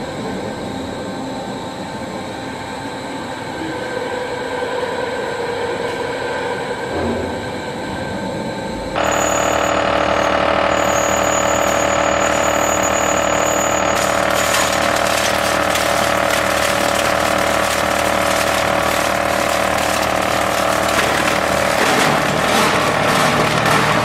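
Machinery of a waste-processing line running steadily, a hum of several held tones. About nine seconds in it gets louder, and from about fourteen seconds a continuous rattling clatter joins as mixed waste is fed up the inclined belt conveyor.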